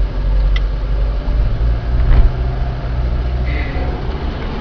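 Car engine and road noise picked up inside a moving car's cabin: a steady low rumble.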